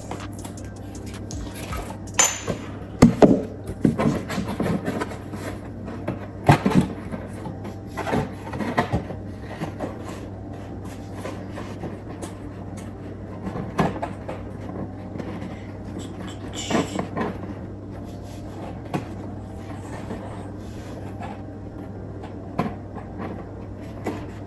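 Handling of a cardstock gift box on a work surface: scattered light taps, knocks and paper rustles at irregular intervals, over a steady low hum.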